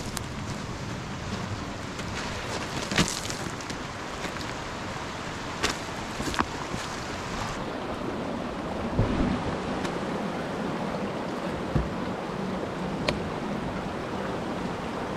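Steady rush of a mountain stream, with a few short crunches and knocks of footsteps on loose river stones.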